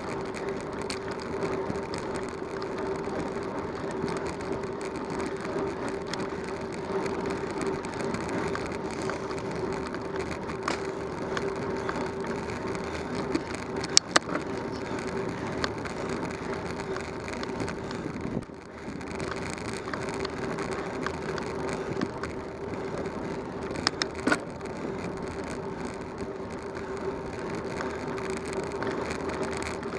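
Bicycle riding along a paved road: a steady rush of tyre and wind noise with a constant hum, broken by sharp knocks about halfway through and again some ten seconds later.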